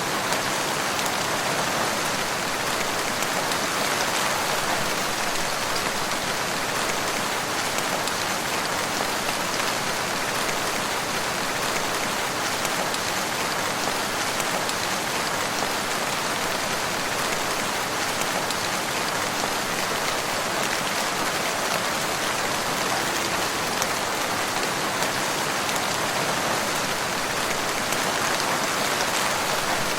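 Steady rain falling in woodland, a dense even patter of drops with no letup.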